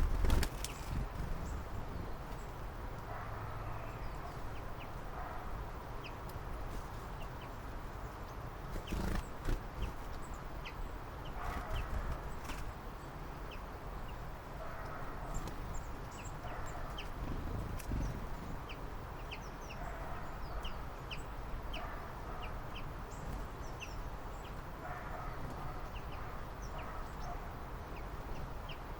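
Birds calling outdoors: many short, high chirps scattered throughout, with lower calls every few seconds over a low rumble. There is a louder knock near the start and another at about nine seconds in.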